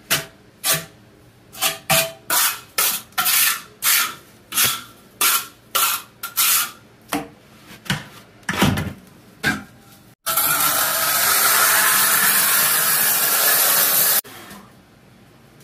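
Steel trowel scraping and spreading thinset mortar on a long tile board, in short repeated strokes, about fifteen in the first ten seconds. Then a steady loud hiss for about four seconds that cuts off suddenly.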